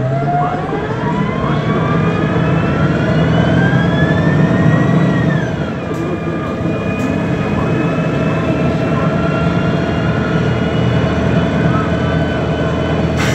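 MAN Lion's City G CNG articulated bus accelerating, its MAN E2866 gas engine and Voith gearbox whine rising steadily in pitch. About five and a half seconds in, the pitch drops at an upshift and then holds steady. A few light clicks follow.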